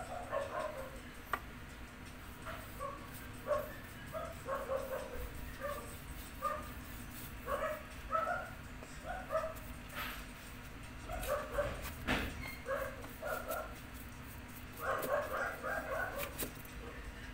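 An animal's short, repeated calls coming in irregular runs, with a couple of sharp clicks about ten and twelve seconds in.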